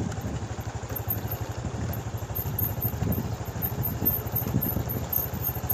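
Motorcycle engine running at low speed, a rapid, even low pulse, as the bike rolls forward.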